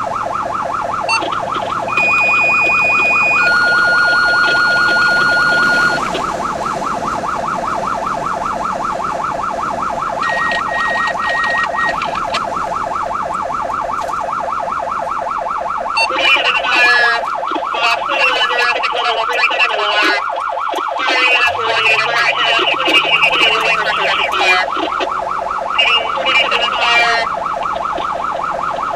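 Emergency-vehicle electronic siren sounding continuously in a fast, rapidly repeating warble, heard from inside the responding vehicle. About two seconds in, a steady, louder tone sounds for about four seconds, and from about 21 s the vehicle's engine can be heard rising as it speeds up.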